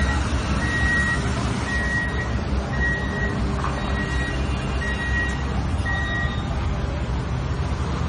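Bawoo V67 skid steer loader's reversing alarm beeping about once a second as it backs up, over the steady rumble of its engine. The beeping stops about six seconds in while the engine keeps running.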